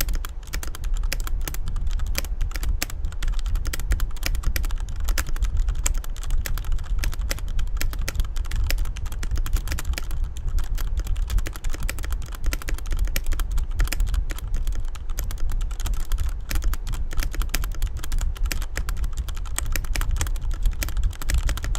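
Continuous fast typing on a Corsair mechanical keyboard with Cherry MX Red linear switches: a dense, irregular stream of key clacks, with a steady low rumble underneath.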